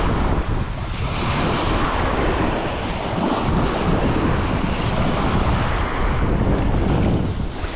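Strong wind buffeting the microphone with a low rumble, over choppy lake waves washing against the shore.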